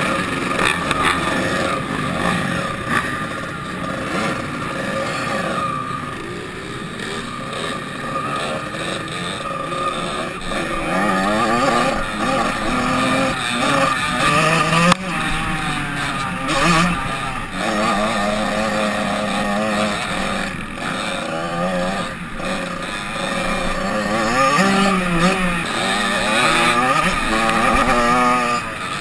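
Motocross dirt bike engines heard from a bike-mounted camera: at first a crowd of bikes running together, then the rider's own engine revving up and dropping back over and over as it is ridden down the track.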